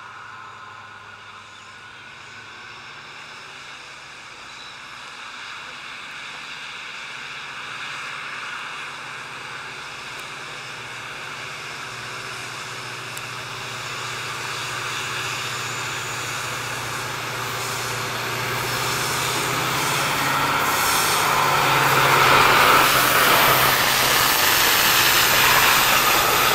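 WDP4D diesel-electric locomotive, a two-stroke EMD engine, hauling a passenger train toward the listener. Its engine drone grows steadily louder and peaks about 22 seconds in as it passes close. The rushing, rumbling noise of the coaches' wheels follows.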